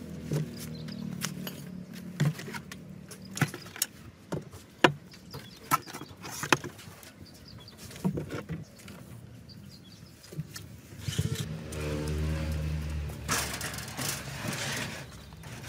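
Workshop handling noises: a series of sharp clicks and knocks, then a low steady hum about twelve seconds in, followed by a couple of seconds of hiss.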